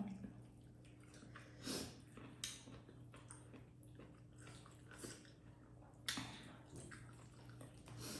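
Quiet close-up eating sounds: chewing, with soft wet smacks and squishes of mouthfuls of dhido and chicken curry about once a second or so, over a faint steady hum.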